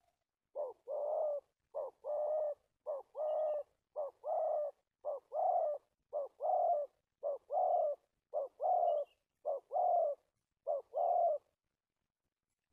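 Spotted dove cooing: a short note followed by a longer one, repeated about ten times at roughly one pair a second.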